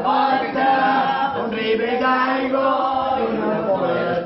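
A group of people singing together in unison without accompaniment, a song with long held notes.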